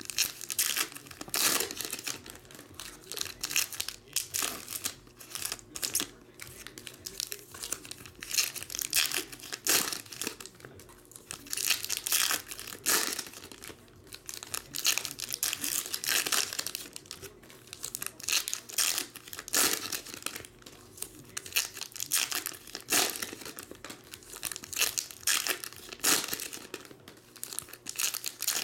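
Foil trading-card packs being torn open and crinkled by hand: repeated, irregular crackling and tearing of the foil wrappers.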